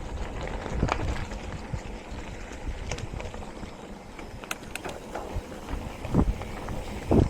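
Mountain bike rolling over a dirt trail, with wind buffeting the microphone, tyre rumble and scattered rattles and knocks from the bike, and two heavier thumps near the end.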